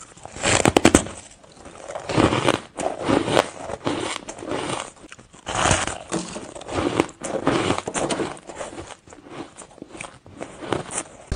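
A person bites into a chunk of fluffy, dry frost ice close to a clip-on microphone, with a sharp crackling crunch about a second in. Then come repeated crunchy chewing sounds as the ice is ground between the teeth.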